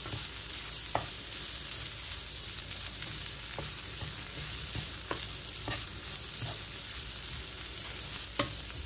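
Potato, onion and pea stuffing frying in oil in a nonstick pan over full flame, sizzling steadily as a wooden spatula stirs and scrapes it, with a few light knocks of the spatula against the pan.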